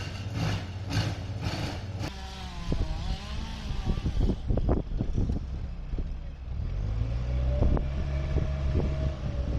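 Petrol-engined tree-felling machinery running. A rhythmic pulsing of about two beats a second gives way to a wavering engine note, with a series of sharp knocks in the middle and a steadier, deeper engine hum in the last few seconds.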